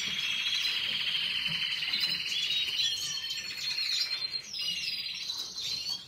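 Canaries singing: fast continuous trills and chirps, turning to more varied whistled notes about halfway through.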